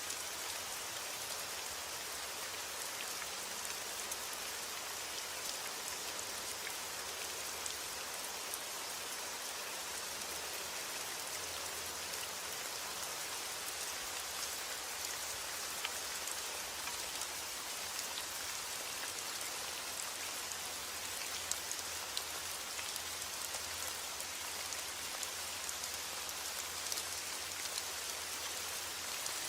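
Steady heavy rain falling on a roof, a constant hiss with many small sharp drop ticks through it.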